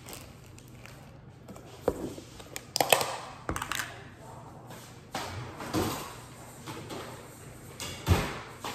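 Kitchen handling noises: a string of irregular knocks, clatters and rustles as bread and other things are picked up and set down on the counter, with a few sharper knocks about two to three seconds in and again near the end.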